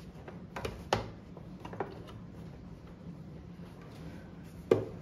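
A few sharp clicks and knocks of parts being handled and fitted on a plastic-bodied overlock sewing machine as it is reassembled, the loudest click near the end, over a steady low hum.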